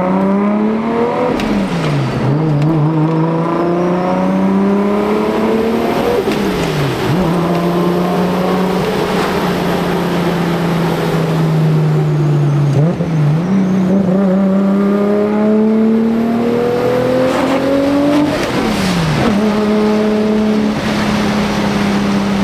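Toyota Supra's straight-six engine pulling through the gears. Its note climbs, drops sharply at each of about four gear changes, and holds steady between them, with wind noise from the open roof.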